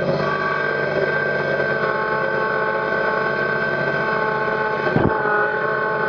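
Kubota BX sub-compact tractor's three-cylinder diesel engine running steadily, with a steady high whine over it and a single short knock about five seconds in.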